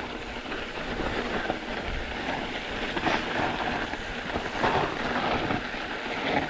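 Mountain bike riding over a rocky trail: a steady rush of tyre noise over rock and gravel, with scattered knocks and rattles from the bike.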